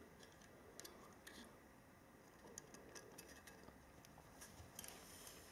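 Near silence with a few faint ticks and light clicks: a small hand tool touching and flicking the tiny spinning fan blades of a 1:200 diecast Boeing 747-400 model's engines.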